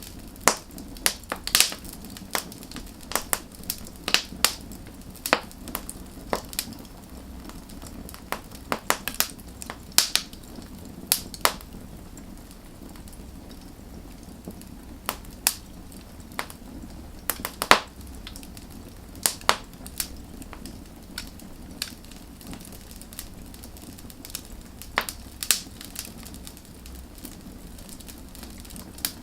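Burning firewood crackling: irregular sharp pops and snaps over a steady low hiss of the fire.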